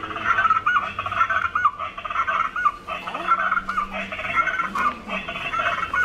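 Recorded rufous-bellied chachalaca calls played from a bird-song book's built-in speaker: a loud run of repeated calls that cuts off at the very end.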